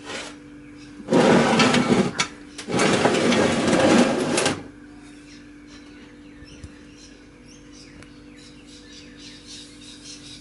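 A steady low hum, with two loud bursts of rough, scraping noise about a second and three seconds in, each lasting one to two seconds. Faint bird chirps follow.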